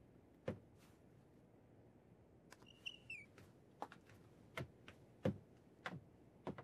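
Faint footsteps on a hard floor, a step roughly every two-thirds of a second in the second half, with a brief high squeak about three seconds in.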